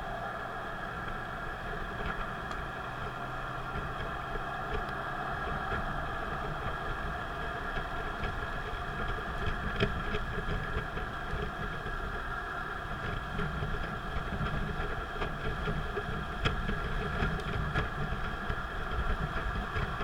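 Steady engine and road noise of a car driving on an expressway, heard from inside the cabin, with a few light clicks about halfway through and again later.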